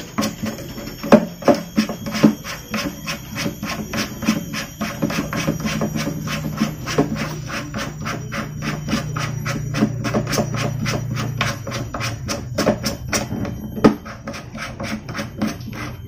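Background music with a steady, quick percussive beat of about four to five hits a second over a low sustained bass.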